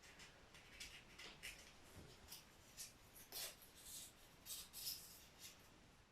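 Faint rustling and scraping, a string of short scratchy strokes: hands working kitchen-paper strips and foam board.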